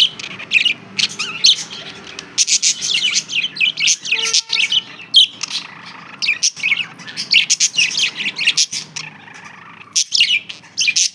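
Pet budgerigars chirping and chattering in a dense run of quick, high calls, broken by a few brief pauses.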